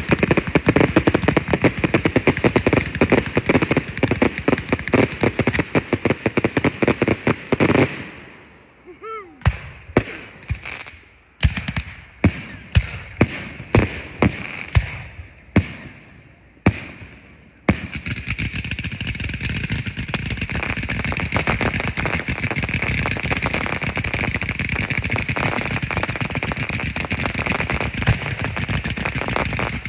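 Fireworks cakes firing: a dense, rapid barrage of shots for about eight seconds, then about ten separate bangs over the next ten seconds. From about eighteen seconds in, a steady, dense crackling.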